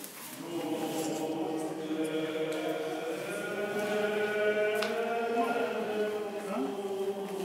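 Orthodox liturgical chant: several voices sing slow, long-held notes. There is a short knock about five seconds in.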